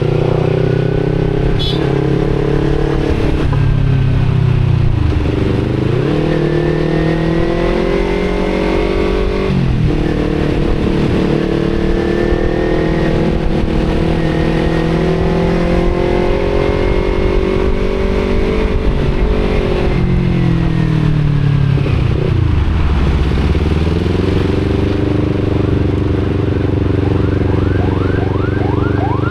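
Kawasaki Z250 motorcycle with an Akrapovic exhaust, riding through city traffic. The engine mostly holds steady revs, dropping briefly about five and ten seconds in, and dropping further around twenty-two seconds before it picks back up. Wind noise rushes over the microphone.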